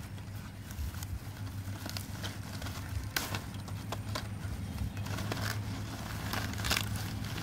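Stiff palm leaves crackling and rustling in irregular clicks as they are folded and tied by hand, over a steady low hum.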